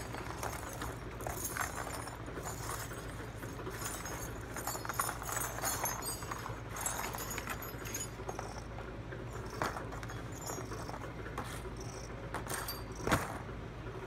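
Cut pieces of interlocked metal cable armour clinking and rattling, with sharper knocks about two thirds of the way through and near the end, as the stripped cable is handled. A steady low hum runs underneath.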